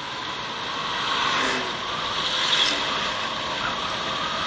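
Wind and road noise from a motorcycle riding along a paved road at moderate speed: a steady rushing hiss over the microphone that gets a little louder after about a second.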